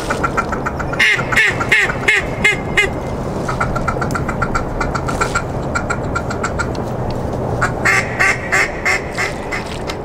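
Ducks quacking: a run of loud quacks about a second in, softer repeated quacking after it, and another loud run near the end.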